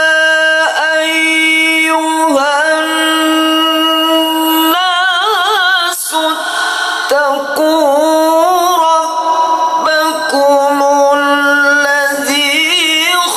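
A man reciting the Qur'an in the melodic tilawah style into a handheld microphone. He holds long drawn-out notes, with quick wavering trills about five seconds in and again near the end.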